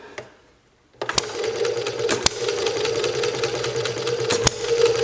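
Model hit-and-miss engine catching on the first pull of its flywheel, with no choke, about a second in. It then runs with a fast, even clatter and a few sharp cracks.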